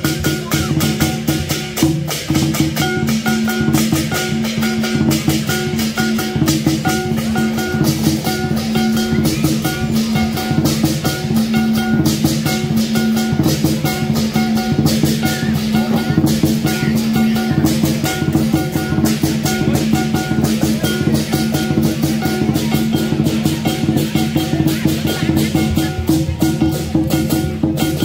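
Lion dance percussion ensemble playing: a lion dance drum beaten in fast, dense strokes with clashing cymbals and a gong ringing steadily underneath, loud and without a break.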